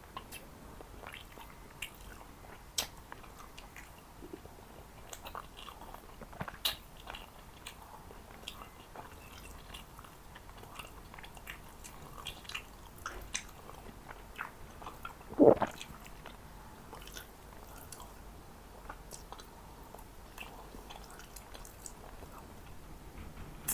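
Close-miked chewing and biting of Jordanian mansaf (lamb, rice and yogurt sauce), with wet mouth sounds and scattered small clicks. There is one louder, longer mouth sound about two-thirds of the way through.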